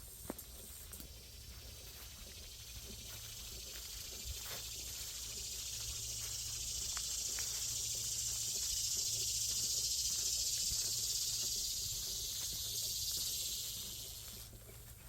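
A high-pitched insect buzz that swells slowly over several seconds, holds, then fades and stops shortly before the end, with faint scattered ticks underneath.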